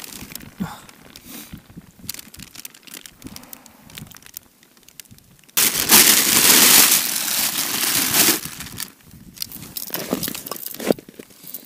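Plastic carrier bag being handled and crumpled close by: scattered light rustles and knocks, then a loud crinkling that starts suddenly about halfway through and lasts nearly three seconds.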